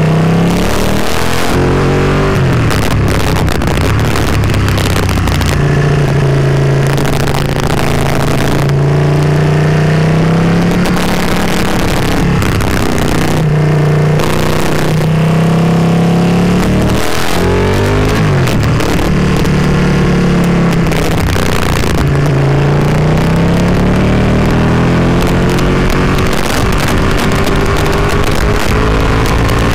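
Ducati Panigale 959's V-twin engine heard from on board, its pitch climbing under throttle and dropping again every few seconds through gear changes and braking for the bends. Wind rush runs underneath.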